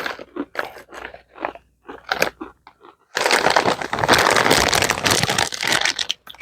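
Potato chips being chewed close to the microphone: a few separate crunches, then about three seconds in a louder, unbroken stretch of crunching that lasts nearly to the end.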